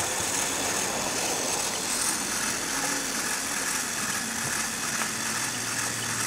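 LEGO Technic gondola station's electric motors and plastic gear trains whirring steadily, with a faint low hum joining in the second half.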